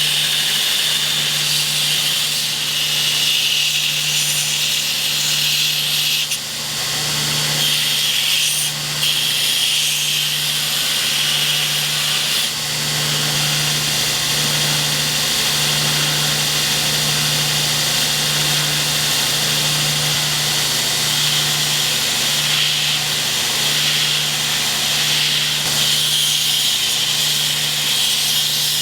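Power grinder running steadily against steel, a constant motor hum under a loud grinding hiss, with a couple of brief dips where the work lifts off.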